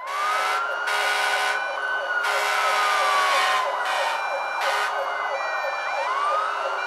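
Emergency vehicle siren wailing: the pitch climbs at the start, falls slowly over a few seconds, and climbs again near the end, over steady background noise.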